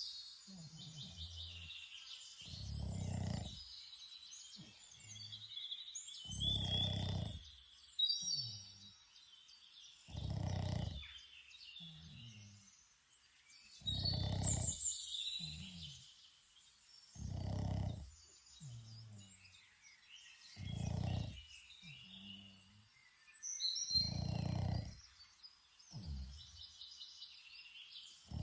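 A sleeping Boston Terrier, a flat-faced breed, snoring in a slow, regular rhythm: a snore about every three and a half seconds, with a shorter, softer snort between each. Birds chirp and sing throughout.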